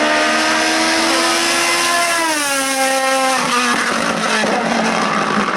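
Hill-climb race car engine under hard acceleration. Its note climbs slowly, falls sharply about two seconds in, and turns rough and uneven from about three and a half seconds.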